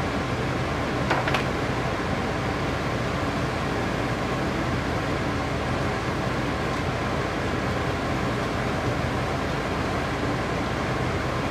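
Steady hum and hiss of running machinery, like a fan or air conditioner. Two short knocks come about a second in.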